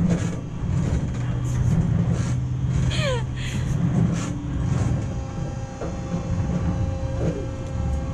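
Frog Hopper kiddie drop-tower ride running with a steady low rumble as it lifts and drops the seat. A child gives a short falling squeal about three seconds in.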